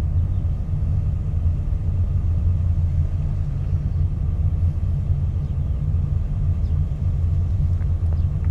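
Car driving along a paved road, a steady low rumble of engine and tyres heard from inside the moving car.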